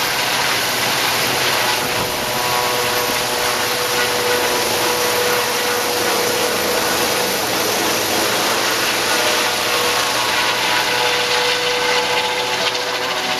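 Rescue helicopter flying low overhead and moving away: a loud, steady rush of rotor and turbine noise with a faint steady whine.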